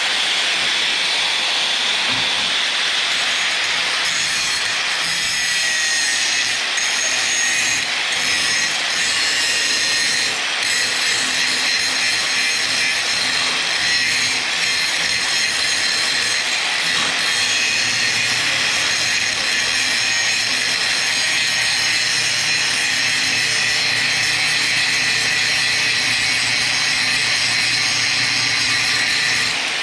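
Power grinder grinding steel, cleaning a spot down to bare metal for welding: a steady, high-pitched grinding hiss with a faint whine over it.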